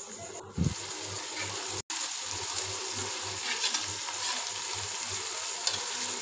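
Sliced onions with chopped green chilli and garlic-ginger sizzling steadily in oil in an aluminium pot while a spoon stirs them. The sound drops out for an instant just under two seconds in.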